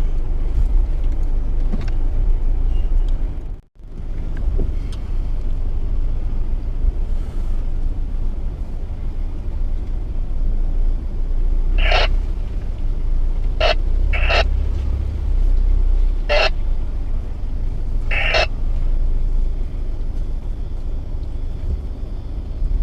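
Mitsubishi Triton ute driving slowly off-road, its engine and tyre rumble heard from inside the cab. The sound cuts out for a moment about four seconds in. From about twelve seconds there are five short, sharp, higher sounds, a second or two apart.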